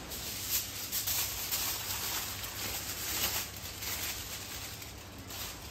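Aluminium foil crinkling and rustling in irregular crackles as it is wrapped around a piece of roast meat.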